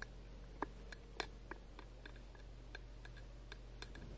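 Quiet room tone: a low steady hum with a few faint, irregularly spaced light clicks.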